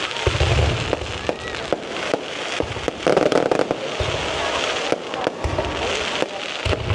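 Fireworks display: shells bursting with repeated low booms, sharp cracks and continuous crackling, one after another.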